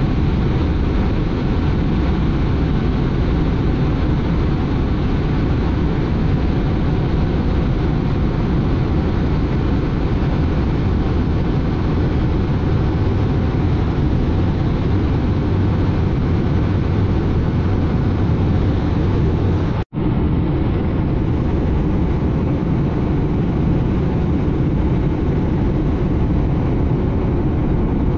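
Steady jet noise of a Blue Angels F/A-18 Hornet in flight, its engines and the rushing air heard together from inside the cockpit. The sound cuts out for a split second about twenty seconds in, then carries on as before.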